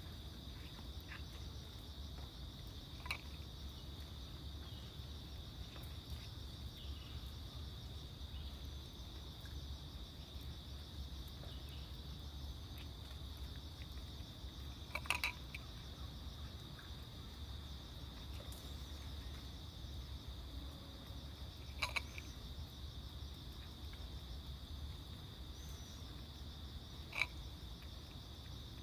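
Crickets chirring in a steady, high, continuous trill, with a few sharp clicks scattered through, the loudest about halfway.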